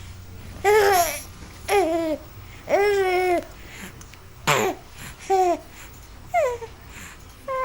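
About seven short, pitched cooing calls, most of them falling in pitch, with a low steady hum underneath.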